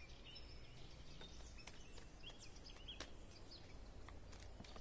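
Faint birdsong: small birds giving short chirps and quick rising and falling notes over a low steady rumble, with a few soft clicks.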